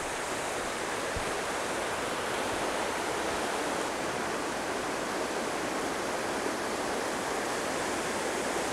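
Goat River running over shallow rapids and cobbles: a steady, even rush of water that grows slightly louder.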